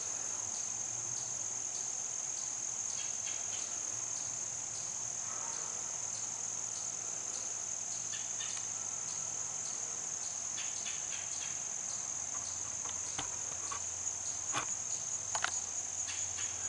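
Steady, high-pitched chorus of crickets, with faint scattered clicks that become louder near the end.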